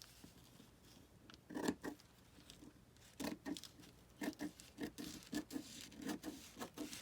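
Paper being handled: short, irregular rustles and crackles, one about a second and a half in and then a steady run of them from about three seconds in.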